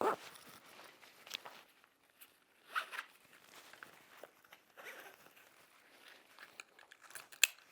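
Nylon fabric and webbing straps of a Stone Glacier Terminus 8700 frame pack rustling and sliding as the pack is lifted and shouldered, with scattered light clicks and a sharper click near the end.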